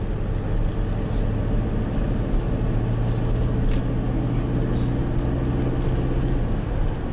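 Steady engine hum and road noise of a moving car, heard from inside the cabin.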